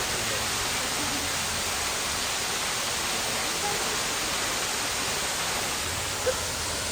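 Waterfall rushing as a steady, even hiss of falling water, with one short sharp sound near the end.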